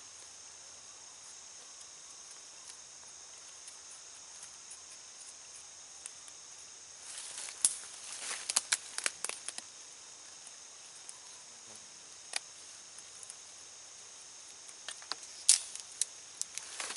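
Knife blade cutting into a green sapling, trimming off its hooked ends, in quick sharp clicks and knocks that come in a cluster about halfway through, once more a little later and again near the end. A steady high drone of insects runs underneath.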